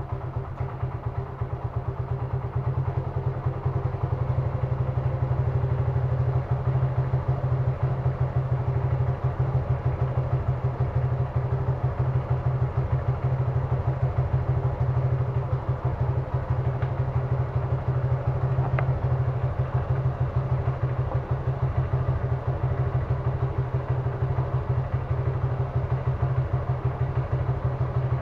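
Suzuki Gixxer single-cylinder motorcycle engine idling steadily, with rapid, even exhaust pulses.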